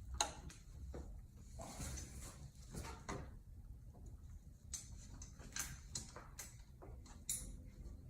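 Scattered light clicks, taps and scrapes of hands working a new deployment cable and its parts into the housing of a Minn Kota Ultrex trolling motor, over a low steady hum. The sharpest clicks come just after the start and about seven seconds in.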